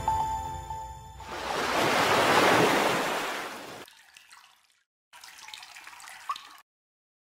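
Logo-reveal sound effect: a splashing-liquid whoosh that swells and fades over about two and a half seconds as the last music notes die away, followed by a fainter crackling shimmer lasting about a second and a half.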